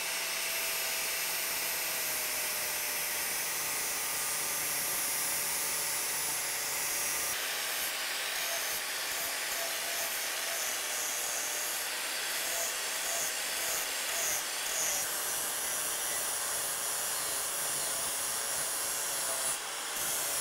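Angle grinder running steadily with its disc grinding the cut steel ends of a pickup's frame rails smooth, a constant motor whine under the hiss of the grinding.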